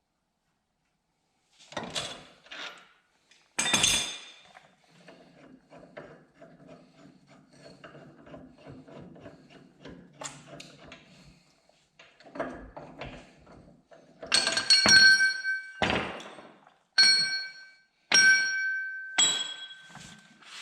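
Hammer blows on steel suspension parts while a ball joint is pressed out: two sharp knocks, a stretch of faint rapid clicking, then from about two-thirds through a run of loud strikes that ring like struck metal.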